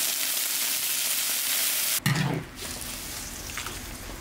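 Water poured into a very hot wok of scrambled eggs, sizzling loudly as it flashes to steam: the start of an egg soup. The sizzle cuts off suddenly about two seconds in, leaving much quieter sound.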